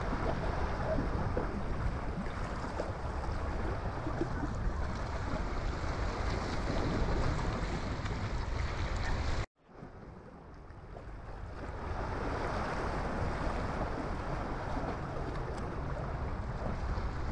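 Outdoor seaside ambience: wind rumbling on the microphone over water washing against a rock wall. About halfway through, the sound cuts out abruptly, then fades back in over a couple of seconds.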